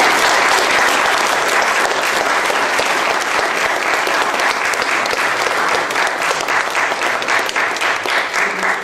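Audience applauding, dense clapping that thins into more separate claps near the end.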